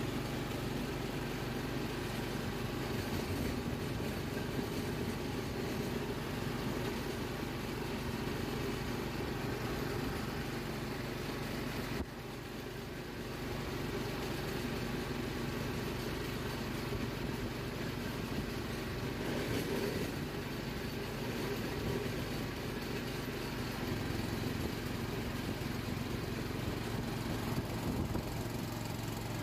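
Diesel locomotive running steadily on a moving train, its engine drone mixed with wheel and track noise, heard from the front of the cab. The level dips briefly about 12 seconds in.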